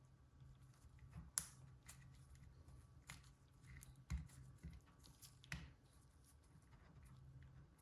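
Faint scattered clicks and taps, a few sharper ones among them, over a low steady hum: small parts being handled.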